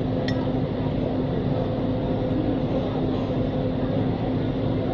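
Steady mechanical hum and rumble at an even level, with a spoon clinking once against a glass bowl shortly after the start.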